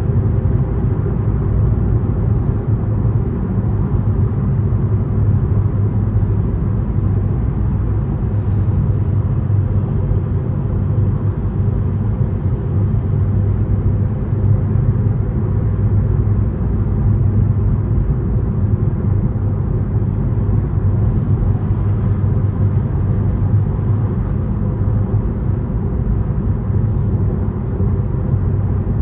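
Steady low road and engine rumble of a Toyota car driving at highway speed, heard from inside the cabin, with a few faint brief ticks.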